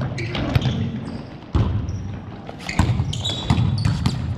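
A volleyball struck and bouncing on a hardwood gym floor during play: several sharp, irregular smacks that echo in the large gymnasium, with a short high sneaker squeak about three seconds in.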